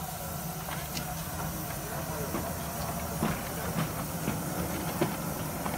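Miniature steam locomotive on a 7¼-inch gauge railway hissing steam, with a run of sharp clicks from about two seconds in.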